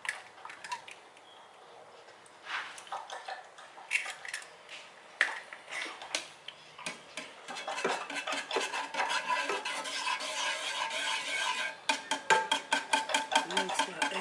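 A metal utensil stirring an egg into warm milk and melted butter in a small saucepan, clinking against the pan: scattered taps at first, then rapid, steady beating strokes from about halfway.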